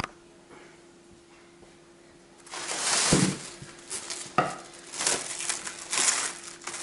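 Plastic cling film rustling and crinkling as it is pulled from the roll and spread over a glass baking dish, in irregular bursts starting about two and a half seconds in, with a couple of dull knocks.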